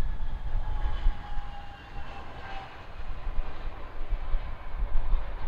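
Jet airliner's engines passing, a whine of several tones falling slowly in pitch, over heavy wind rumble on the microphone.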